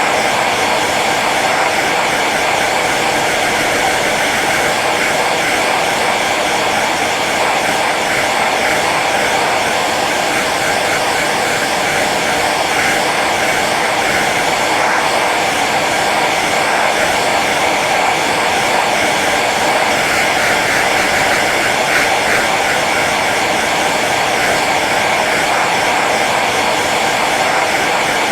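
Hair dryer running steadily on its low setting: a constant airy blowing with a steady motor hum, unchanging throughout.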